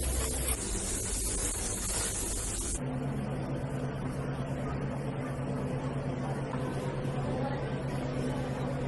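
Food frying in a pan, a steady sizzle, cuts off abruptly about three seconds in. A steady machine hum with a low constant tone follows.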